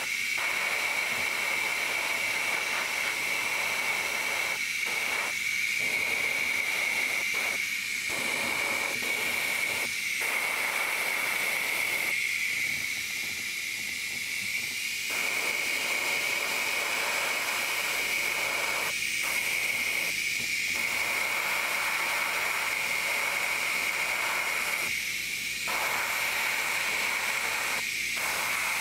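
Airbrush spraying thinned paint: a continuous hiss of compressed air with a steady high whistle running through it. The hiss eases off briefly several times as the trigger is worked, longest for about three seconds near the middle.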